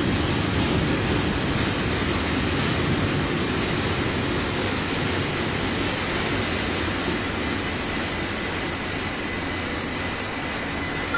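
ÖBB Bombardier Talent electric multiple unit running into the platform and slowing: a steady rolling rumble of wheels on rail that eases off gradually, with a faint high whine joining about halfway through.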